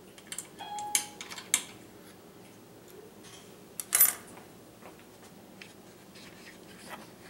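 A few light metallic clicks and clinks, one with a brief ring, as hands work the plunge router on the metal mortising jig, then a sharper clink about four seconds in as a hex key is set down on the jig's aluminium base.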